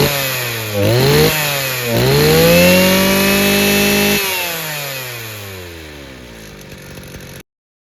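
Mitsubishi T200 brush cutter's small two-stroke engine, fitted with a diaphragm carburettor, being revved: a quick blip about a second in, then throttled up and held at high revs for about two seconds. The throttle is then released and the engine winds down, fading, until the sound cuts off suddenly near the end.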